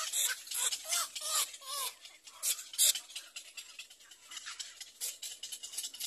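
Little egret nestlings begging: a rapid, rasping chatter with a few short rising-and-falling calls in the first two seconds, busiest in the first half.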